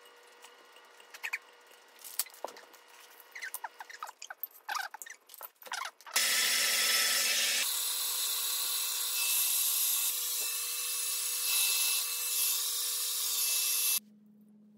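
Metal chopsticks and spoons clinking against bowls and a pan for about six seconds. Then a handheld hair dryer blows loudly and steadily for about eight seconds before cutting off suddenly.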